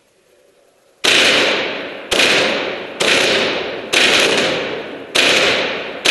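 Tippmann Phenom paintball marker firing single shots, starting about a second in: six sharp pops about a second apart, each trailing off in a long echo around a large concrete hall.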